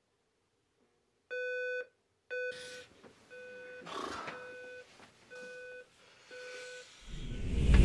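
Digital alarm clock beeping: one electronic beep about once a second, the first two louder and the rest softer. A couple of brief rustles come between the beeps, and a rising rush of sound near the end.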